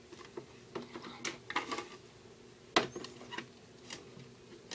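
Scattered light clicks and taps, about half a dozen, the loudest a sharp knock about three seconds in.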